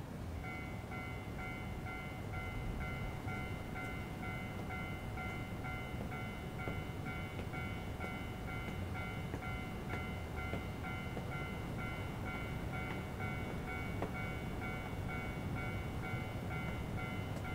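Steady rumble of a train passing, with a level-crossing alarm ringing in even pulses about twice a second.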